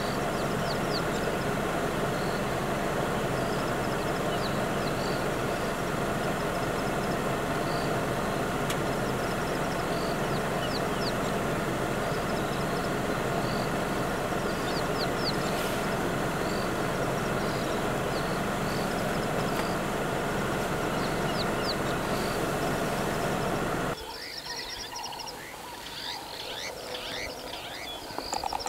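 A vehicle engine running steadily, with small birds chirping repeatedly over it. A few seconds before the end the engine sound cuts off suddenly, leaving the birds' chirps standing out against quieter surroundings.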